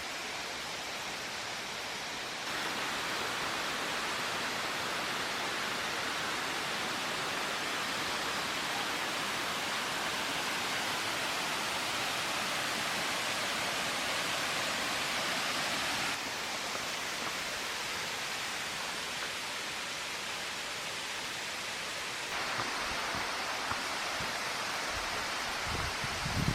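Water of a 98-metre waterfall crashing down, a steady rush of noise with no break. It steps abruptly louder a couple of seconds in, softer about two thirds of the way through, and louder again near the end.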